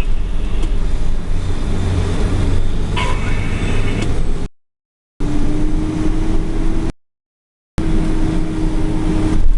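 Heavy diesel machinery running steadily with a deep rumble during forage corn harvesting, with a steady hum in the later part. The sound cuts out to silence twice, briefly.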